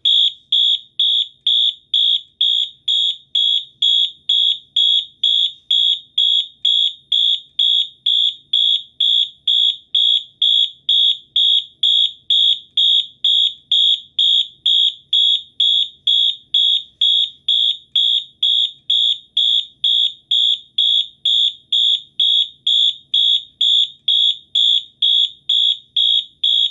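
Wheelock MT multi-tone fire alarm horn sounding its march-time tone: a loud, high electronic tone pulsing on and off evenly, about twice a second.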